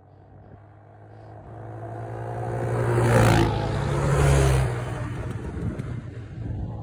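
Two sport quads, a Yamaha Raptor and a Honda TRX250, racing at full throttle toward and past, their engines growing louder on the approach, loudest as they go by about three and four seconds in, then fading as they pull away.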